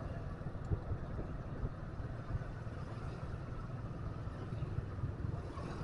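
Steady engine and road noise of a motorbike riding through street traffic, a continuous low rumble.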